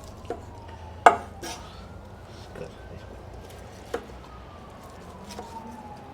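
A knife cutting through smoked turkey breast, the blade knocking on the cutting board several times; the loudest knock comes about a second in. A faint distant siren wails slowly down and up behind it.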